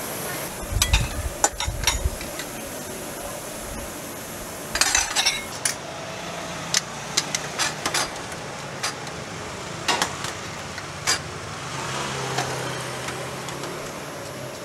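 Metal ladles and a wire strainer basket clinking and knocking against steel pots and pans, over a steady sizzling hiss. Near the start, liquid is ladled into a pan of ginger frying in sesame oil.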